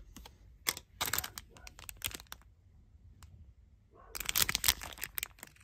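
Clear plastic packaging crinkling as it is handled, in two spells of rustling; the second, about four seconds in, is the louder.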